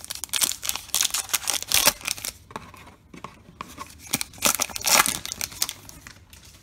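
Hands tearing open a 2021 Topps Allen & Ginter card pack wrapper, with crinkling rips in two spells: one in the first couple of seconds and another about four seconds in.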